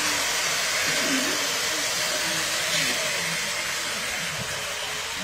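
Lionel Scout toy steam locomotives running on three-rail tinplate track: a steady whirring rush of motors and wheels on the metal rails. It is louder at first, as a train passes close, and eases off toward the end.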